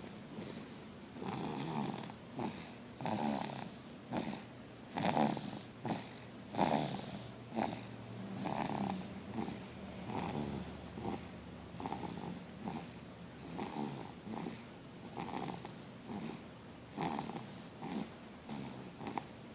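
A sleeping pet snoring: a regular run of breath sounds, about one a second.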